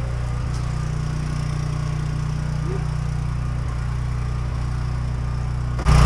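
A steady low engine-like hum, a motor running at a constant speed. Just before the end the sound cuts abruptly to something louder.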